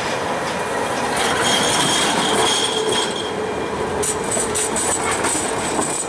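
Siemens-Duewag articulated street tram rolling past on rails with a steady rumble of wheels. A thin, high, steady squeal runs from about one to three seconds in. A run of sharp clicks follows around four to five seconds in.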